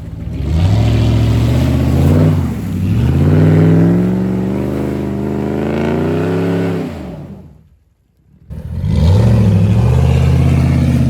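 Off-road 4x4 pickup truck's engine revving hard while driving through mud, its pitch climbing and falling several times. The sound drops out for about a second near the end, then the engine is back, revving again.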